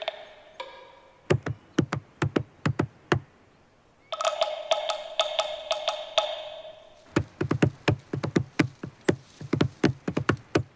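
Cartoon woodpecker pecking effect: sharp wooden knocks in quick, irregular runs. A short burst of music with percussion sits between the two runs.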